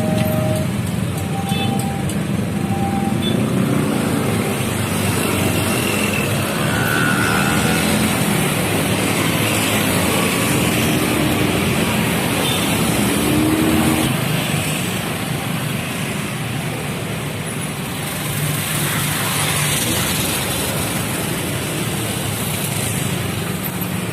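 Steady road traffic noise: vehicle engines and tyres running at a busy railway level crossing. In the first three seconds or so, short repeated electronic tones of the crossing's warning alarm sound, then stop.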